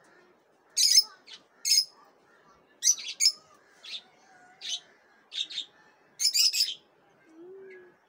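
Lutino peach-faced lovebirds giving short, shrill chirps, one at a time and in quick clusters, about a dozen in all, with a rapid run of chirps about six and a half seconds in.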